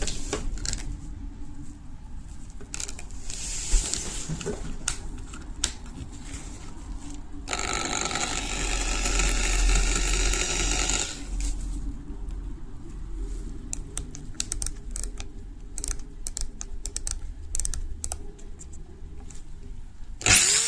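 Clicks and rattles of a Hitachi DV16V hammer drill being handled, with a few seconds of steady rattling whirr midway. Near the end the drill's motor starts with a sharp rising whine, the loudest sound here.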